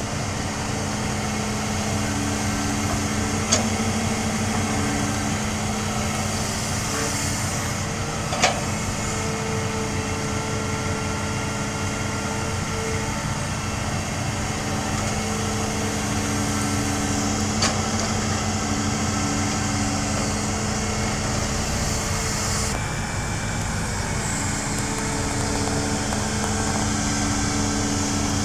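Hitachi hydraulic excavator's diesel engine running steadily under work, with higher whining tones that come and go. Three sharp knocks stand out, the first a few seconds in.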